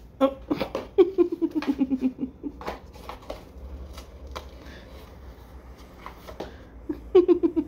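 Small cardboard box scraping and knocking across a wood-laminate floor as a cat shoves it along with its head inside. A run of scrapes and taps fills the first few seconds, it goes quieter in the middle, and another run comes near the end.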